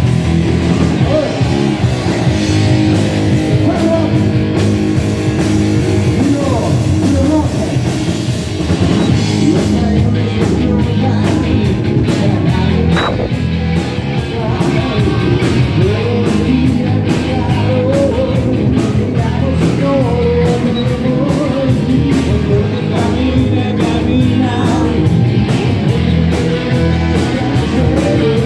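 Rock song: a band with guitars and a steady drum beat, with a voice singing over it.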